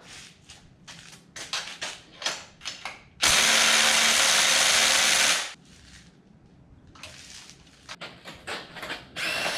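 Light clicking and clatter of tools. About three seconds in, a power tool runs steadily for about two seconds and then stops, while spark plugs are being taken out of a Ford 4.6L modular V8. A short burst of noise comes near the end.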